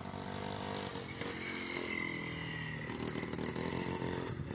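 Small motorcycle engine running as it rides past close by, its note dipping around the middle and then rising again near the end.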